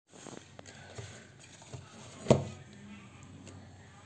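Plastic parts of an electric mini chopper being handled as its motor top and lid are taken off after grinding: a few small clicks, with one sharp click a little over two seconds in.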